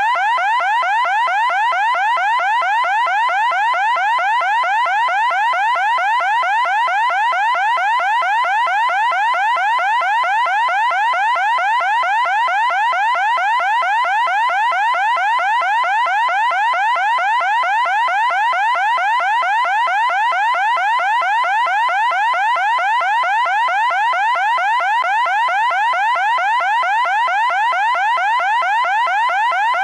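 Electronic siren tone sweeping rapidly upward in pitch, over and over several times a second, loud and without any change or pause.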